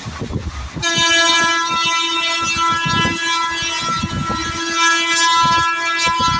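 Locomotive horn sounding one long, steady blast of about five and a half seconds, starting about a second in, over the knocking and rattle of the moving train.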